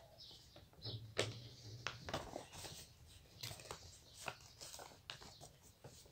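Sheets of paper rustling and being creased by hand during folding: faint, irregular crinkles and soft taps. A brief low hum comes in about a second in.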